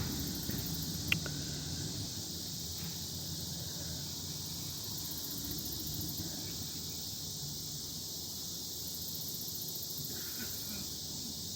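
Steady high-pitched chorus of insects, crickets or similar, droning evenly outdoors, with a single short click about a second in.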